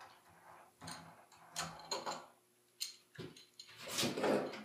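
Small plastic clicks and ticks as the solenoid is unscrewed by hand from a plastic irrigation sprinkler valve held in a vise, then a louder handling noise about four seconds in.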